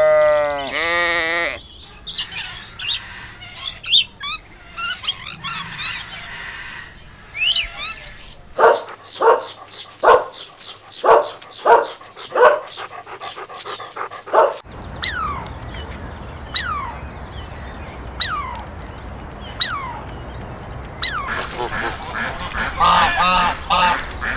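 A run of different bird calls, changing every few seconds: high chirping, then a series of loud calls about twice a second, then single falling whistled calls spaced about a second and a half apart, then a dense burst of calls near the end.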